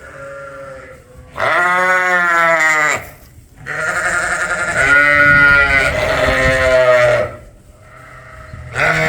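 Sheep bleating loudly: one bleat of about a second and a half, then a longer one of about three and a half seconds, and another starting near the end, each dropping in pitch as it ends.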